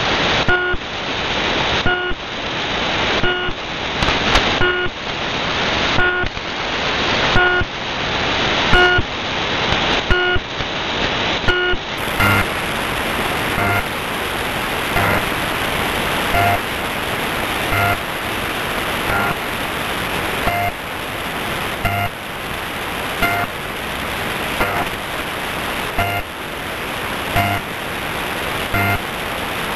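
Shortwave radio reception of the Russian numbers station UVB-76, "The Buzzer", sending short beeps a little over a second apart through heavy static. This is its changed 2022 sound. About twelve seconds in, the recording switches to its sister station "The Pip" on 3756 kHz AM, whose short, low, buzzer-like tones repeat at a similar pace through hiss.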